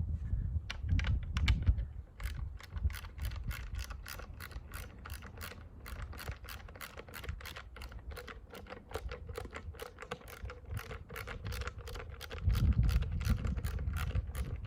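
Hand ratchet clicking steadily, about three to four clicks a second, as a fastener on a truck's air brake chamber is undone. Low rumbling handling noise at the start and again near the end.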